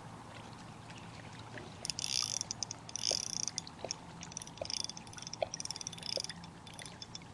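Fishing reel clicking in short bursts of rapid ticks while a hooked fish pulls against the light line.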